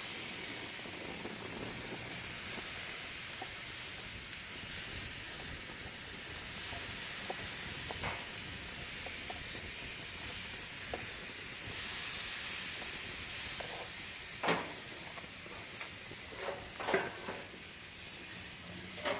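Chicken and shrimp sizzling on a hot grill as a honey-based sauce is brushed onto the shrimp, a steady hiss. A few light clicks and knocks come near the end.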